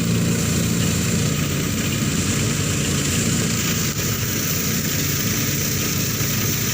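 Engine-driven rice threshing machine running steadily: a constant low engine drone with a broad hiss above it.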